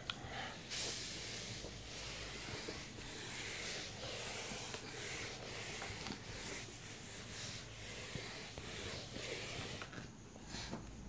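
Hand-held whiteboard eraser scrubbing back and forth across a whiteboard, a hissing rub that swells with each stroke. It stops near the end.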